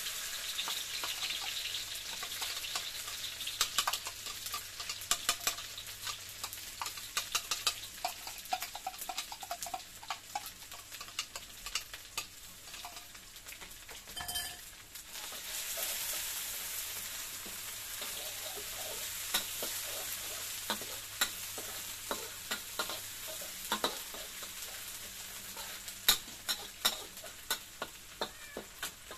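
Ground chilli-belacan paste sizzling in hot oil in a wok, with a metal spatula scraping and tapping against the pan as it is stirred. The sizzle drops away briefly about halfway through, then comes back stronger.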